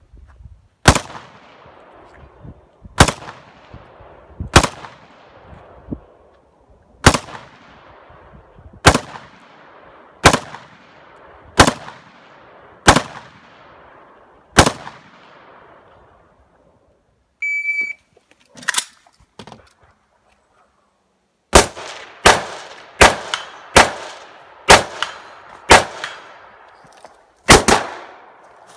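Semi-automatic AR-15-style rifle firing, each shot sharp with a long echoing tail. First comes a steady series of about nine shots roughly one and a half seconds apart, then after a couple of brief gaps a faster string of shots.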